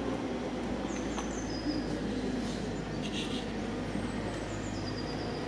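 Low steady hum of a car driving slowly on a street, with a small bird chirping short, high, falling notes a few times.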